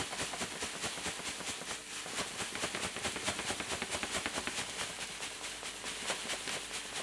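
Pilsner malt grain poured steadily from a bag into a muslin-lined bowl, a continuous dry patter of many tiny grain clicks as it lands on the cloth and the growing pile.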